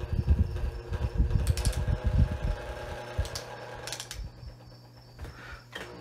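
Early-1960s Hoover table fan running through a capacitor decade box, its motor humming steadily under a low, uneven rumble. The rumble drops away about four seconds in, and a click comes near the end.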